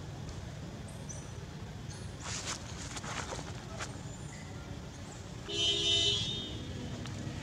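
A steady low rumble, broken about five and a half seconds in by one loud, pitched, horn-like toot lasting just under a second.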